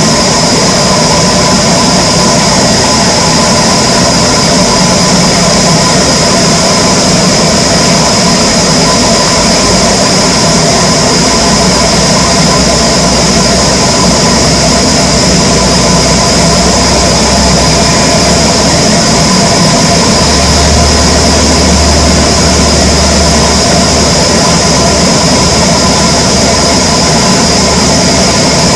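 Wood-cutting machinery running steadily, a loud continuous mechanical drone with a steady high whine. The low rumble grows heavier for a few seconds about a third of the way in, and again about two thirds in.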